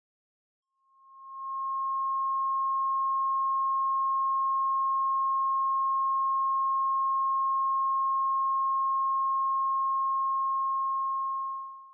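Steady pure sine tone at about C#6, near 1.1 kHz, played as a recreation of a ringing tinnitus pitch. It fades in about a second in and fades out near the end.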